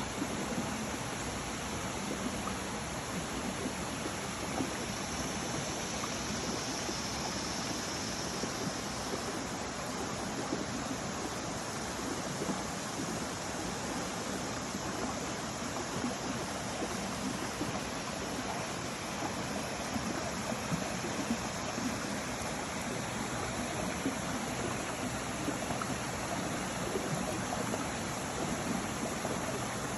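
Running water rushing steadily and evenly, with no pauses or changes.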